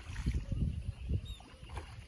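A hooked peacock bass thrashing and splashing at the water's surface close to the bank, in short uneven bursts, while it is played in on rod and reel.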